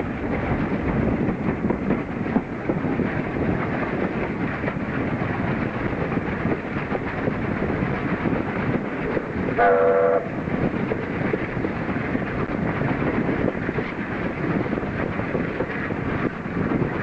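Steam train hauled by Peppercorn A1 Pacific 60163 Tornado running, a continuous rumble of wheels and rail noise, with one short blast of the locomotive's steam whistle, several pitches at once, about ten seconds in.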